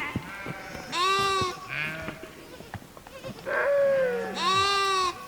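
Sheep bleating, several animals calling one after another. There are about four bleats, the loudest about a second in and near the end.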